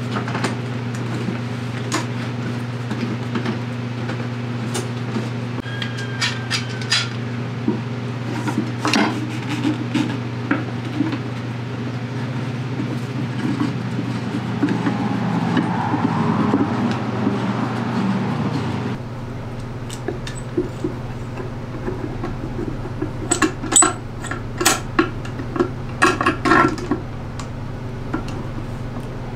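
Ratcheting clicks of one-handed bar clamps being tightened, with light wooden knocks as a dovetailed wooden hive box is pressed together and squared. A quick run of sharp clicks comes near the end, over a steady low hum that eases about two-thirds through.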